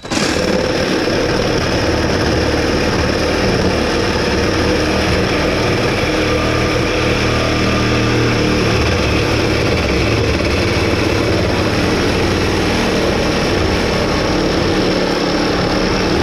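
Cordless DeWalt 20V Max reciprocating saw running steadily, its blade cutting through the truck's exhaust pipe.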